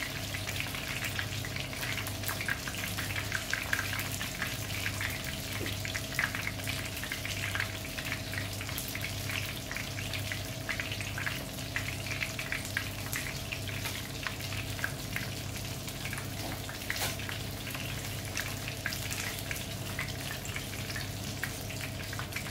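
Breaded hammour (grouper) fillets shallow-frying in hot oil in a frying pan: a steady sizzle of many small crackling pops, over a low steady hum.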